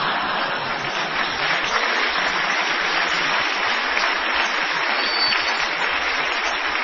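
Live audience applauding, a steady, dense clapping that fills the whole stretch and fades out as speech resumes just after.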